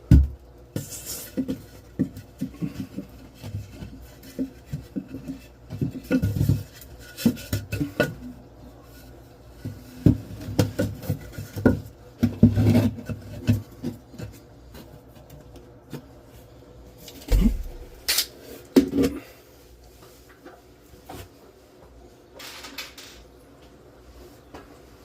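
Irregular knocks, scrapes and rubbing as a plywood support strip is worked into place in a hole in a drywall ceiling, with a heavier thump about two-thirds of the way through.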